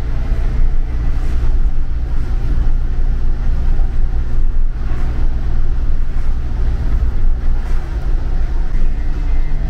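Motorhome on the move, heard from inside the cab: steady low engine drone with road and tyre noise.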